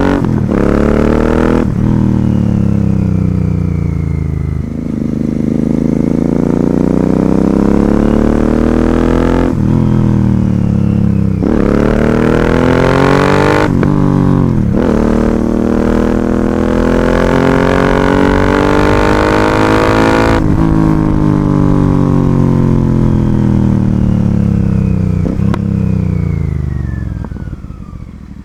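Royal Enfield Continental GT 650's parallel-twin engine, through an Ixil aftermarket exhaust, accelerating through several gears. The note climbs and drops back at each shift, then falls in one long glide as the throttle is rolled off, growing quieter near the end.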